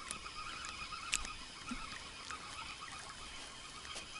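Spinning reel being wound in to bring a hooked roach to shore: a steady fine whirring whine from the reel's gears, with a few sharp clicks.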